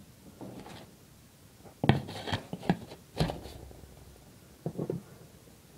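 Irregular knocks and scraping rubs of handling noise, bunched between about two and three and a half seconds in, with two more knocks near the end.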